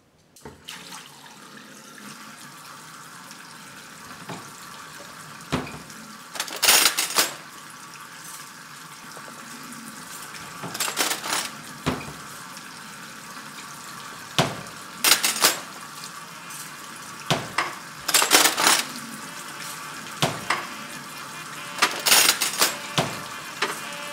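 Kitchen sounds: china cups and cutlery clinking irregularly, a dozen or so times, some clinks ringing briefly, over a steady hiss.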